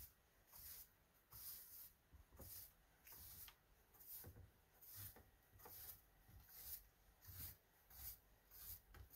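Faint, rhythmic swishes of a broom sweeping a wooden porch deck, about three strokes every two seconds.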